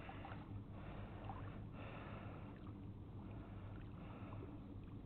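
Faint steady outdoor background noise at a lake shore, with a constant low rumble and no distinct events.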